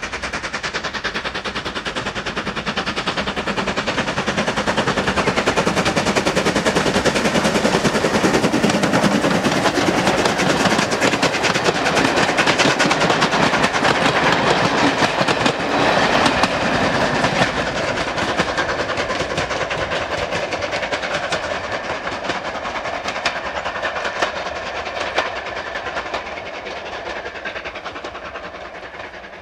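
Steam locomotive hauling a train of coaches, its exhaust beating in rapid strokes as it approaches and passes, loudest in the middle. Then the coaches' wheels clatter over the rail joints as the train runs away and fades.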